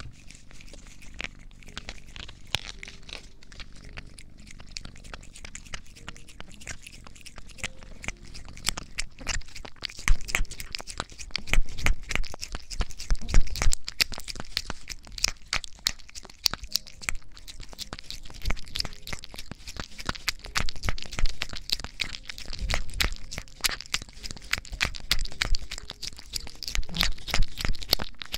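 A cat's fur rubbing and pressing against a binaural microphone's ear: dense, crackly scratching. It grows louder about ten seconds in, with a few low bumps.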